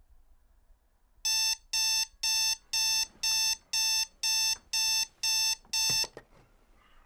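Digital bedside alarm clock going off: ten short electronic beeps, about two a second, starting about a second in. The beeping stops about six seconds in as a hand presses it off, with a small knock.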